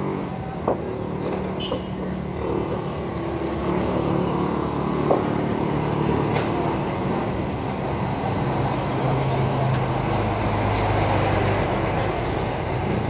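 Vehicle engines running and passing on the street, a steady traffic drone whose pitch shifts from about nine seconds in. A couple of sharp knocks, one near the start and one about five seconds in, come as a heavy wooden log section is rolled and set down on concrete.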